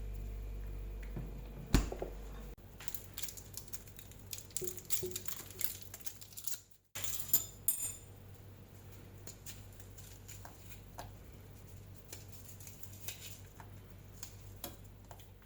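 Kitchen utensils clinking and tapping against a bowl while ramen soup seasonings are mixed: a run of small light taps, with two louder ringing clinks about seven seconds in, then faint ticks.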